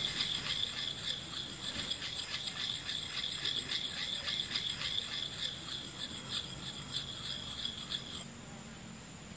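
An insect calling in a high, pulsing buzz that cuts off abruptly near the end.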